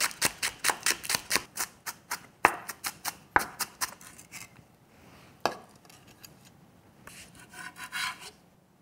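Chef's knife chopping a green onion on a wooden cutting board, quick even strokes about five a second for some four seconds, then a few single knocks. A soft scraping on the board near the end.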